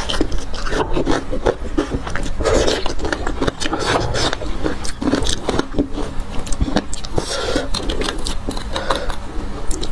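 Close-miked mouth sounds of eating bone marrow, sucking and chewing, and a metal spoon scraping the marrow out of the bones, in a dense string of small wet clicks and scrapes.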